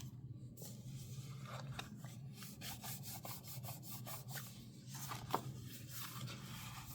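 Tape and paper being rubbed down into a journal's centre crease: soft, scratchy rubbing strokes, with one sharper tick about five seconds in.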